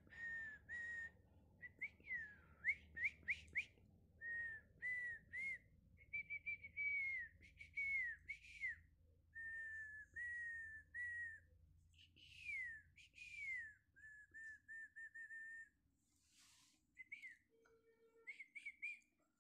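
Someone whistling a tune in short notes around one pitch, some held level and some sliding downward, in phrases with brief pauses.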